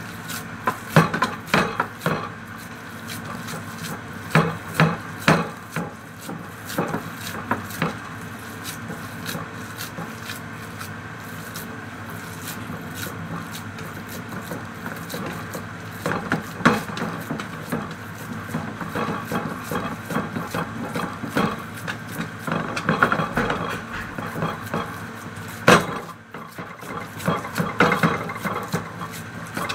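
Hands pressing and patting a raw minced-meat kofta mixture flat into a baking tray. Irregular sharp knocks and scraping come from the tray as it is handled, over a steady faint hum.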